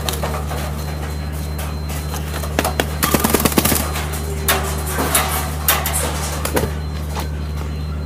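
A steady low hum with scattered sharp clicks, and a short rapid clatter of clicks about three seconds in.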